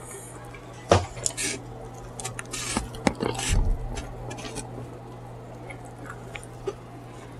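Close-up eating sounds of mu shu chicken: sharp clicks and taps of utensils on dishware with wet, squishy chewing and lip smacking. It is busiest in the first four seconds, with the loudest click about a second in, then settles to smaller ticks.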